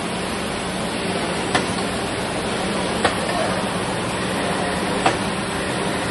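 MAW ABL 210 multiple spindle drilling machine running, a steady rushing noise with a low hum, broken by three sharp clicks about a second and a half to two seconds apart.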